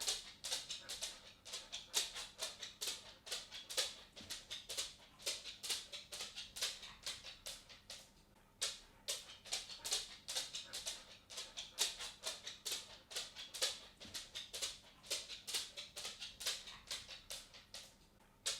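A cat's footsteps: quick, light clicks several times a second in an uneven walking rhythm, pausing briefly about eight seconds in.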